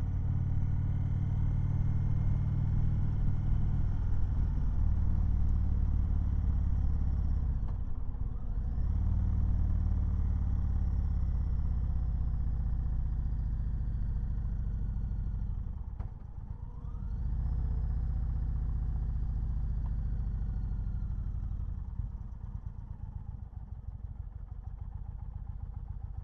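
Indian Chieftain Dark Horse V-twin motorcycle engine running under way. The engine note dips twice, about a third of the way in and a little past halfway, and each time rises again in pitch as the throttle opens. Near the end it eases off to a lower, quieter run as the bike slows.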